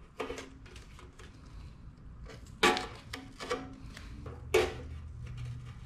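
Blue painter's tape being handled on a motorcycle fender: a few short, sharp rasps of tape pulling and peeling, the loudest about two and a half and four and a half seconds in.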